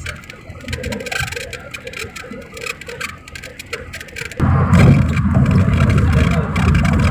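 Road and wind noise of a car travelling at highway speed, heard from inside: a steady rush that abruptly becomes much louder and deeper, with heavy low rumble, a little over four seconds in.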